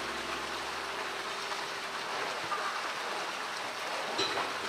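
Steady rush of running water, with a light knock about four seconds in.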